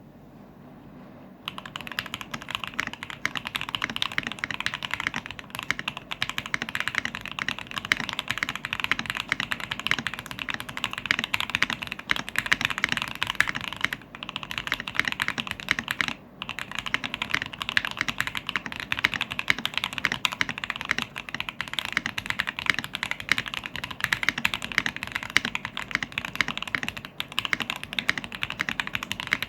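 Fast, continuous typing on a Physalis mechanical keyboard fitted with SP-Star Polaris Grey switches on a half plate. It starts about a second and a half in and is broken by two brief pauses around the middle.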